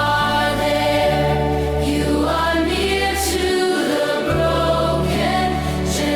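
Background acoustic worship music with long held notes over a steady bass, which drops out briefly a little after three seconds in.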